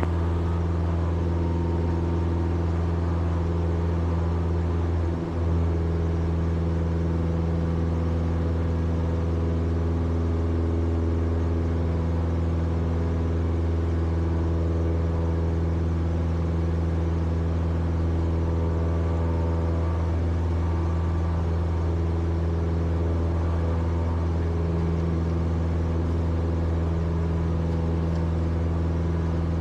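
Cessna 172's four-cylinder piston engine and propeller running steadily in flight, heard as the constant drone in the cabin.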